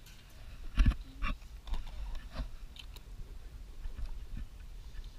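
Close handling noise: scattered clicks, knocks and rubbing, with a louder thump a little under a second in, over a low rumble.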